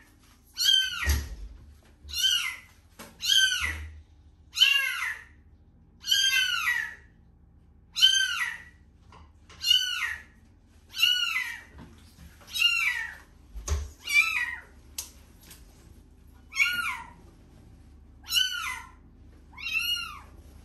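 Very young kitten meowing over and over, high thin cries about one a second, each rising then falling in pitch. A couple of dull low thumps come in between, about a second in and again around the middle.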